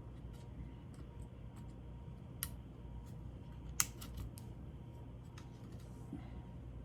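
Scattered small clicks and taps of laptop parts being handled and fitted during reassembly, with two sharper clicks about two and a half and four seconds in, over a steady low hum.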